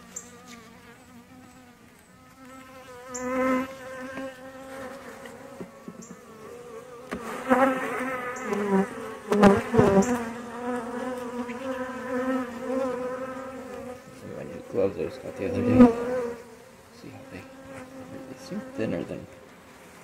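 Honeybees buzzing over an open hive: a steady hum of many bees that swells loud several times as bees pass close by.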